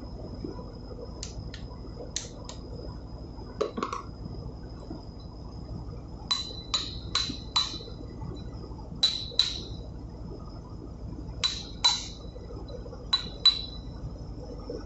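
A hammer striking a metal drift to bend up the tabs of a locking plate against bolt heads: sharp metallic clinks that ring briefly, mostly in quick pairs. A few lighter taps come first, and about ten harder strikes follow from about halfway in. A faint steady high whine runs underneath.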